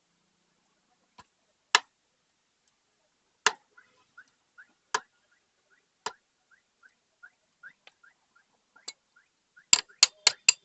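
Sharp metal knocks a second or two apart, then a quick run of about five near the end: the front wheel axle of a Royal Enfield Continental GT650 being knocked out of the fork.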